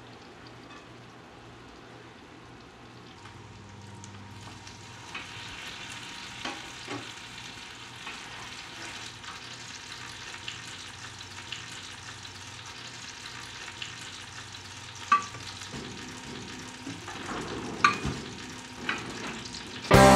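Farmer's cheese dumplings (lazy pierogi) sizzling in melted butter in a frying pan, the frying growing louder a few seconds in. A few sharp clicks of a utensil against the pan near the end.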